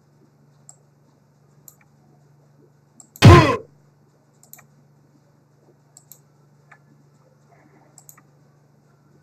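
Computer mouse clicking every second or so over a steady low electrical hum; about three seconds in, a short, very loud sound effect plays back, a sudden hit with a quickly falling tone.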